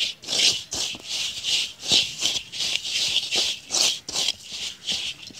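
Hands mixing and rubbing a dry wheat-bran fishing-bait mix around a metal bowl: a gritty rustling in repeated strokes, about two or three a second.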